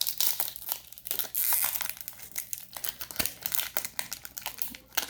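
A baseball card pack wrapper crinkling and tearing as it is opened by hand, with many quick irregular crackles.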